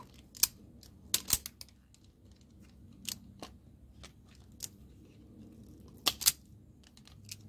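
Wire strippers clicking and snipping as insulation is stripped from the ends of the fan resistor's wires: a series of sharp clicks, several in quick pairs, with the loudest pair about six seconds in.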